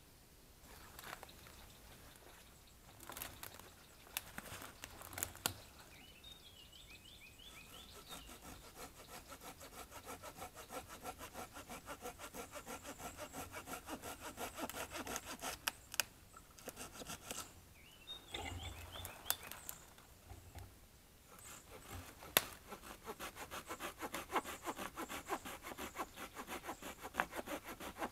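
Fiskars retractable hand saw with a 160 mm blade cutting through a branch about 5 cm thick: quick back-and-forth strokes of the teeth rasping through the wood. A few handling knocks come before the sawing starts, about a quarter of the way in. The sawing stops for a few seconds about two thirds of the way through, then resumes.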